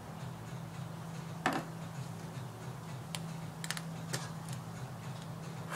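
A teaspoon clicking and tapping against a baking soda container while a dose is measured out: one sharper knock about one and a half seconds in, then a scatter of small clicks, over a steady low hum.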